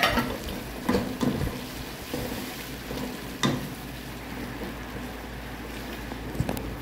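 Beef and vegetable gravy sizzling in a nonstick pot as it is stirred with a wooden spatula, with a few short knocks of the spatula against the pot.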